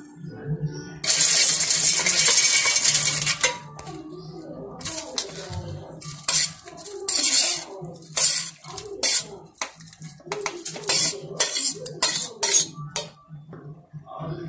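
Roasted peanuts poured into a steel mixer-grinder jar, a dense rattle lasting about two seconds, followed by a steel spoon clinking and scraping against the steel jar and bowl as fried ivy gourd and chillies are spooned in.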